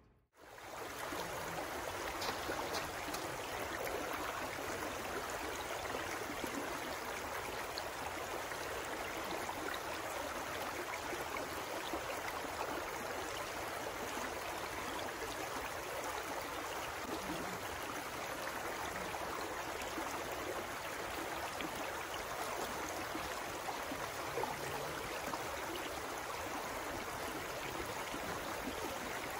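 Shallow, rocky forest creek flowing over stones: a steady rush of running water that starts about half a second in.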